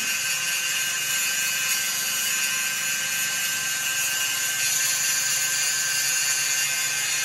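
A power tool running steadily in a steel workshop: a hissing whine with a few fixed high tones that does not change in pitch or level.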